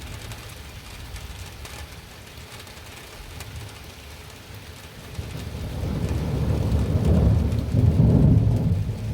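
Steady rain falling, then about five seconds in a deep rumble of thunder builds and rolls, loudest near the end.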